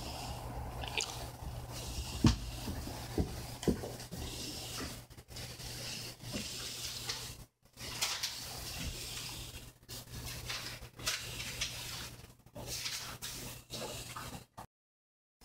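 Rustling and handling noise over a steady low hum, with a few sharp knocks about two to four seconds in. The sound cuts out completely twice, briefly.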